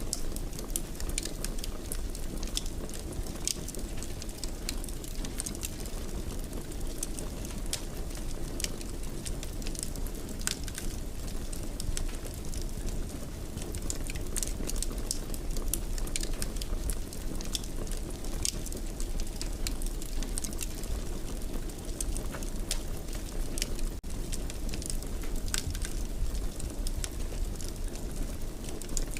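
Wood fire burning in a fireplace: a steady low rumble and hiss with frequent small crackles and pops.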